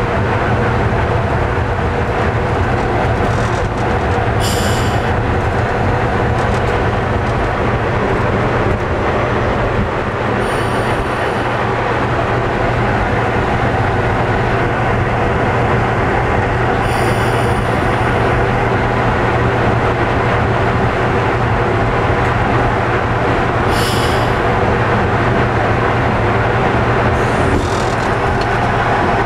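Napier Deltic two-stroke diesel engines of a British Rail Class 55 Deltic locomotive running steadily, heard inside the cab as it moves slowly over pointwork. Four brief high squeals come at intervals of about six to seven seconds.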